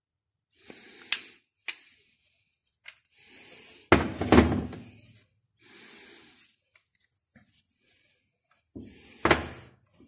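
Sharp knocks and clinks of metal engine parts, from a small two-stroke brush cutter engine being taken apart. The loudest is a heavy thunk about four seconds in, with another sharp knock near the end.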